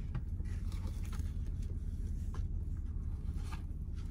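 Quiet eating noises in a car cabin: soft rustling and light clicks of handling fast food and its packaging, over a steady low hum.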